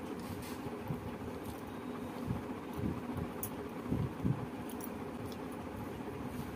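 Eating by hand: fingers mixing and squishing rice with chicken curry on a banana leaf, with chewing and mouth sounds, a few soft thumps in the middle and some light clicks, over a steady low hum.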